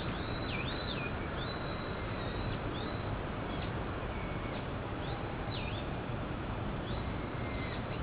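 A bird in the trees giving short, sharp calls over and over, each a quick high stroke sliding down or up in pitch, over a steady low rumble.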